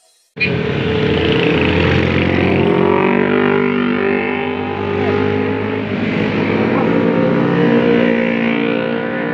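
Motorcycle engines running as motorbikes ride past, a loud steady engine sound that begins abruptly about half a second in.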